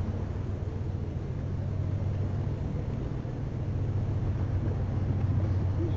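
An engine running steadily with a low, even hum, growing a little louder about four seconds in.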